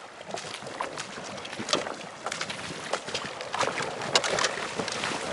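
Feet in rubber galoshes splashing step by step through a shallow river ford, with a sled dragged through the water, over the noise of the flowing stream. The splashes come irregularly and grow louder as the wader comes close.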